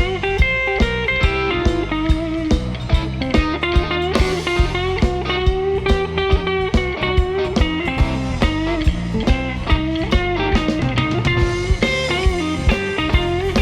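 Live blues band playing an instrumental break: electric guitar soloing with long held, bending notes over bass and a steady drum beat.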